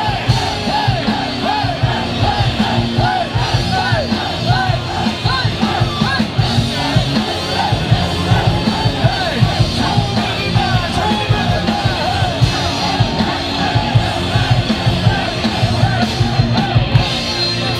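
Live rock band playing loud and fast: distorted electric guitar riffing over bass and drums through a PA, with yelling mixed in.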